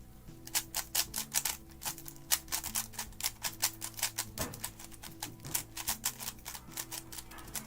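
Rapid, irregular clicking of a Gan 11 Air speedcube, a non-magnetic 3x3 puzzle cube, being turned fast during a timed solve.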